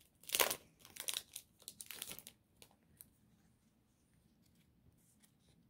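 Crinkling and tearing of the wrapping being pulled off a small notepad, in several quick rustling bursts over the first two seconds, followed by a couple of faint ticks.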